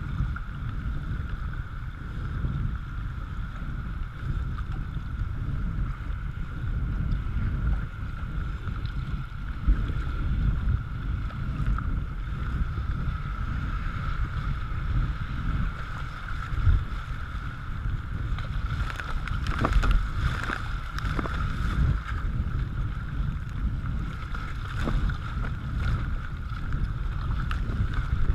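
Kayak paddled down a riffly river: a steady rush of moving water and wind buffeting on a deck-mounted camera's microphone, with paddle strokes splashing. The splashes are thickest about two-thirds of the way through.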